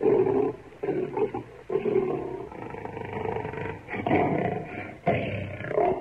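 Male lion roaring in a series of calls about a second apart.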